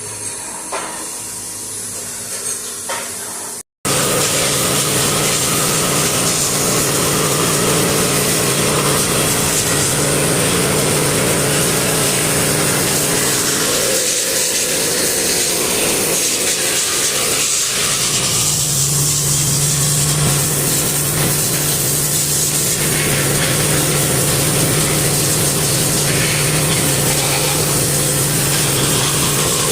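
Machine tool cutting into a Subaru engine block: a loud, steady noise of metal being machined, joined past the halfway mark by a steady low hum. The first few seconds are quieter, with a few light ticks, before the loud cutting noise starts abruptly.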